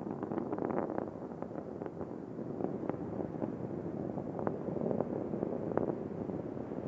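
Space Shuttle Discovery's rocket exhaust during ascent: a steady rumble with many irregular sharp crackles.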